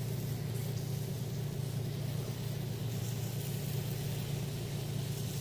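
Steady low mechanical hum, unbroken and even in level.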